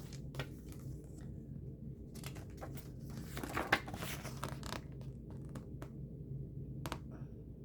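A plastic CD jewel case being handled and opened: scattered clicks and taps, with a short spell of crinkly rustling about three and a half seconds in, over a low steady hum.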